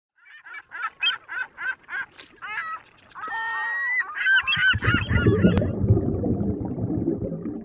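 A quick run of repeated bird calls, about three a second, then several calls overlapping; about four and a half seconds in they give way to a muffled, low rumble of water heard by a camera submerged in a waterproof case, with a single sharp click partway through.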